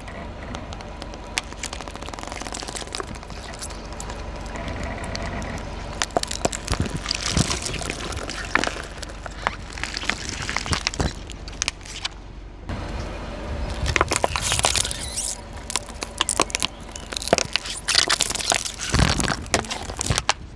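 Plastic soda bottles packed with water beads crackling and cracking as a car tyre rolls over and crushes them, with gel beads bursting and scattering. The cracks come in two dense runs, the second ending in a loud burst near the end.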